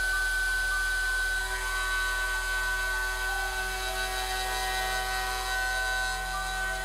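End mill on a DIY CNC mill cutting titanium with a steady, high-pitched squeal of chatter. The noise comes from the front of the part, which is unsupported by the workholding.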